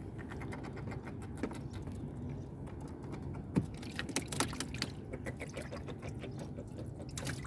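Light clicks and taps of hands unhooking a small fish and handling the fishing rig, with a few sharper knocks around three and a half to four and a half seconds in and again near the end, over a steady low background rumble.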